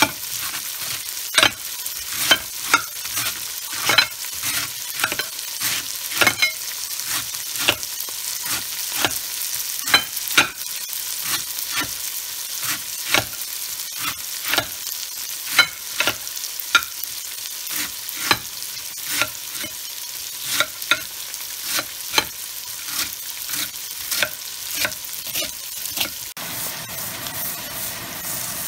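Cleaver chopping on a ceramic plate in irregular sharp knocks, about two a second, over the steady sizzle of oil frying in a pot. The chopping stops near the end and the sizzle changes as the pot is handled.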